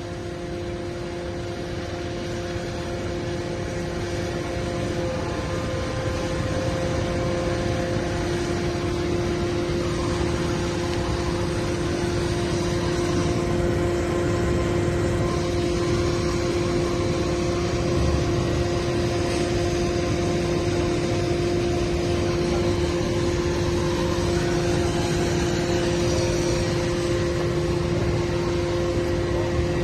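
Heavy machinery running steadily: an engine rumble with a steady hydraulic whine, growing a little louder over the first several seconds.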